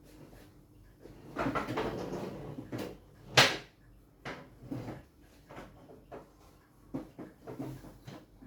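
Clicks and knocks from the clock being handled: a scraping rustle for about two seconds, one sharp knock a moment later, the loudest sound here, then a string of lighter clicks and knocks.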